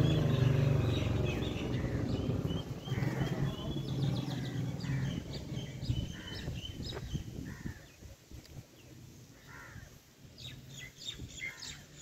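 Small birds chirping in short repeated calls over the low hum of a motor vehicle, which fades away over the first half. A quick run of chirps comes near the end.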